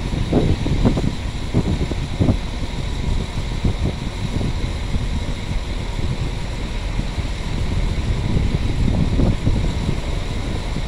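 Wind buffeting the microphone in uneven gusts, over the steady low running of an Irish Rail 22000 Class diesel railcar standing at the platform, with a faint steady high whine.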